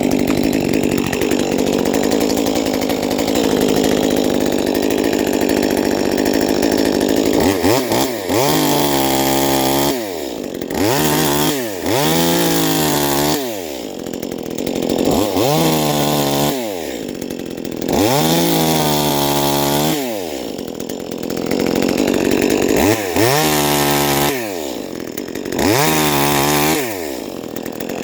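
Huspanda HP2500S top-handle two-stroke chainsaw running at high speed. After several seconds its engine speed starts dropping and climbing back again, over and over, about every two seconds.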